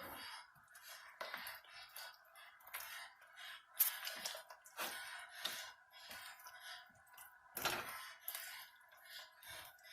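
Irregular clinks and scrapes of a utensil against cookware while chicken pieces are mixed in sauce, the loudest about four and eight seconds in, over a faint steady hum.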